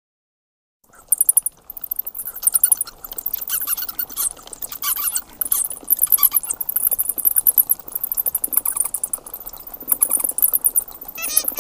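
Bats squeaking: very high-pitched squeaks in quick series, starting about a second in.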